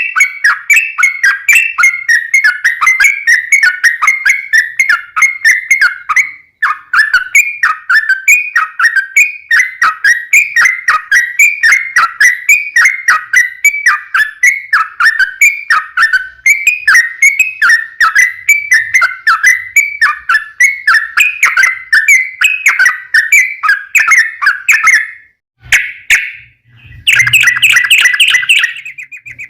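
Yellow-vented bulbul (trucukan) singing a long, rapid chattering run of repeated whistled notes, about three a second. It breaks off briefly near the end, then resumes in a denser burst with a low thump under it.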